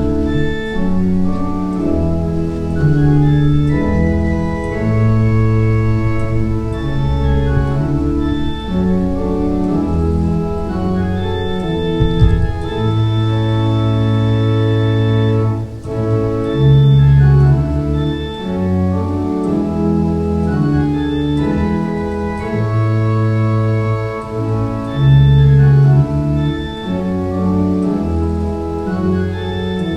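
Organ playing a slow hymn in sustained chords, with the bass notes changing every second or two.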